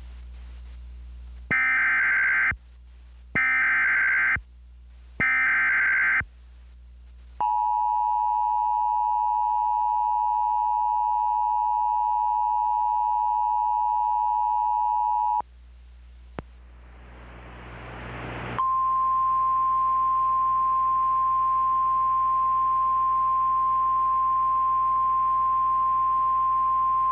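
Emergency alert tones: three short screechy bursts of S.A.M.E. digital header data, then the two-tone EAS attention signal held for about eight seconds. A brief rising hiss of static follows, then the single steady 1050 Hz NOAA Weather Radio warning alarm tone for about ten seconds.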